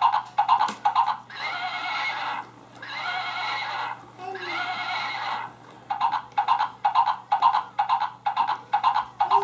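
Recorded horse sounds from a plush rocking horse's built-in sound box: galloping hoofbeats about three a second, broken by three long whinnies of about a second each, then the hoofbeats resume.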